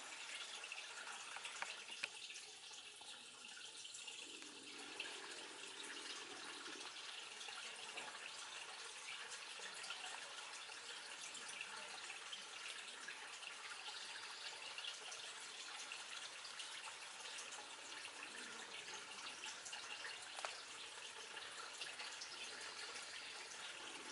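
Water trickling steadily, with scattered small drips.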